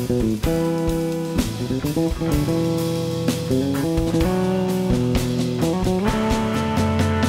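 Jazz trio playing: sustained electric guitar notes and chords over electric bass, with drum kit and cymbal strokes throughout.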